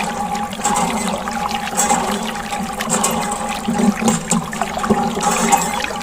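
Water running from a tap and splashing steadily onto plastic toys being washed.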